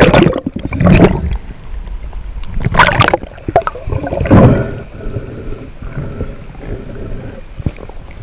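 Muffled rushing and gurgling water heard through an underwater camera housing, with a constant low rumble and several louder surges near the start, about a second in, and around three and four and a half seconds.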